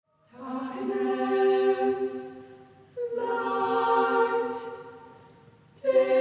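Chamber choir singing a cappella: three long held chords, each starting together and slowly fading away, the last one coming in near the end.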